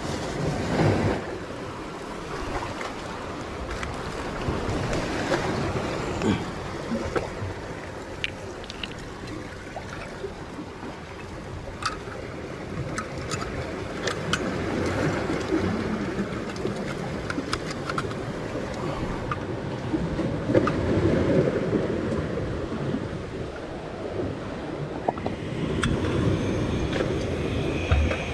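Sea waves washing on the shore, swelling and fading every few seconds, with wind on the microphone and a few small clicks.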